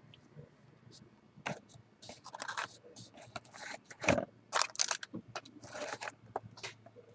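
Baseball trading cards being handled: irregular scraping and rustling, which gets busier about a second and a half in.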